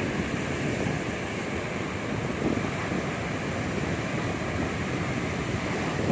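Ocean waves washing steadily in a continuous rushing noise, with wind rumbling on the microphone.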